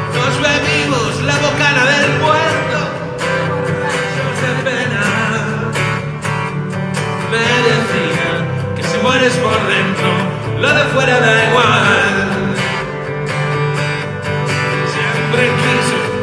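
Instrumental intro of a rock song: a band playing with guitar to the fore and a wavering lead melody over it.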